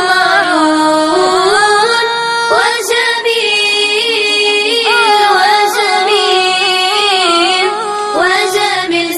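High female voice singing an Arabic devotional nasheed in long, ornamented melodic lines that glide between notes.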